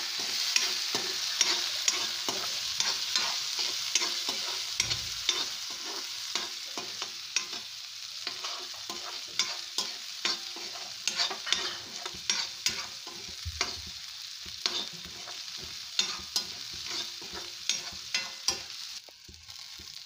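Green peas frying with a steady sizzle in hot oil in a metal kadhai, while a metal spatula scrapes and clinks against the pan as they are stirred. The sizzle drops away about a second before the end.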